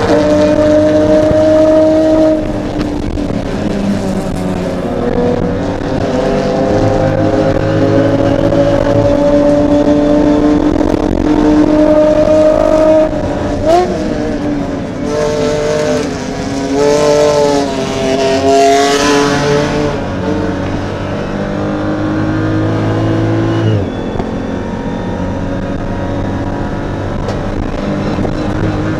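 BMW M235iR race car's turbocharged straight-six engine heard from inside the cockpit under hard acceleration. Its pitch climbs steadily and drops sharply at gear changes, with a run of short, quick rises and falls about halfway through.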